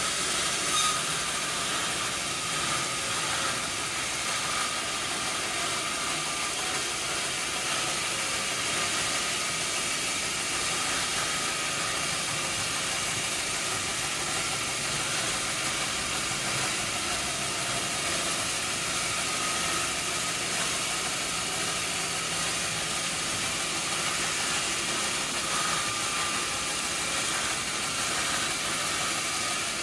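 Sawmill machinery running steadily: a continuous rushing noise with a faint steady whine.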